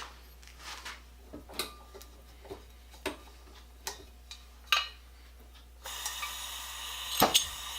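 Scattered light metallic clicks and taps, irregularly spaced about one a second, from metal parts and tools being handled. About six seconds in, a steady hiss begins, with a few louder clicks over it.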